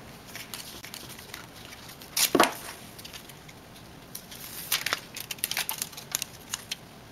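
Aluminium foil heat-shield tape being torn from its roll and peeled: crinkling and crackling of the foil and its backing, with a loud rip about two seconds in and a run of sharp crackles from about four and a half seconds.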